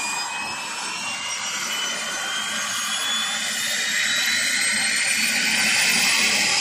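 Military helicopter spooling up on the pad: the turbine whine rises slowly and steadily in pitch, over a rushing engine and rotor noise that grows gradually louder.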